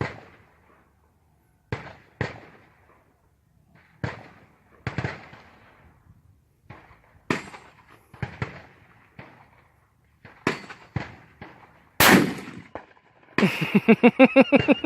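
Rifle shots at an outdoor range: well over a dozen cracks at irregular intervals, each with a short echo tail. About twelve seconds in comes a louder, closer shot, a .243 Winchester hunting rifle fired with a little kick. Near the end, a person's voice breaks out in rapid short pulses.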